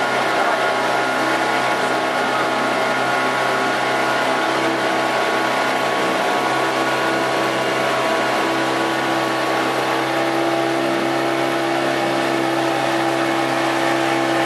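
Small boat's outboard motor running steadily under way, a constant droning engine note; one humming pitch in it grows stronger about halfway through.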